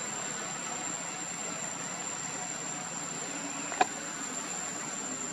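Steady noisy outdoor background with a constant high-pitched whine, and one sharp click a little under four seconds in.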